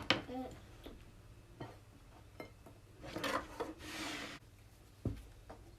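A knife spreading butter or corn cream across a slice of bread, with two scraping strokes a little past the middle. A sharp click sounds at the start and a dull knock near the end.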